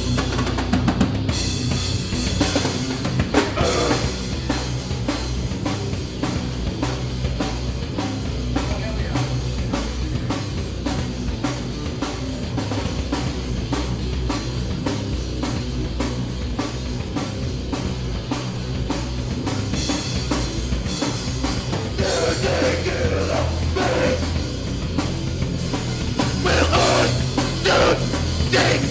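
A heavy rock band playing live, an instrumental stretch with fast, dense drum-kit beats under distorted guitar and bass; the playing gets busier and louder in the last third.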